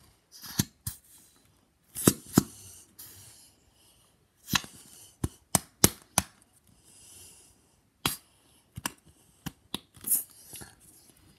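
Sticky slime being squeezed and pulled from a plastic tub with the fingers, giving irregular sharp pops and clicks with softer squishy hiss between them.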